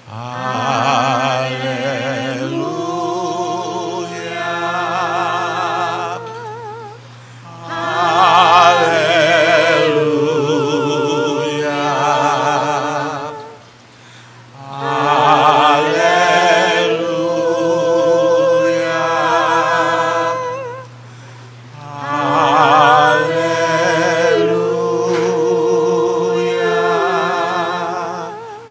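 Several voices singing 'Hallelujah' unaccompanied, a cappella, in four long drawn-out phrases with vibrato and short pauses for breath between them.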